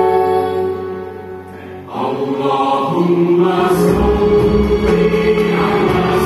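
Live orchestral music with a choir, in long held notes. It thins out about a second in and swells back at about two seconds, with deep low notes coming in at about four seconds.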